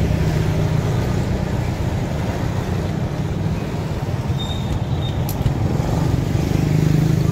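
Steady low engine rumble of passing road traffic, with a constant low hum and a few faint clicks.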